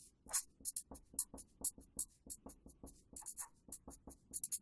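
Quick, short strokes of a marker pen scratching across paper as a drawing is made, about five strokes a second.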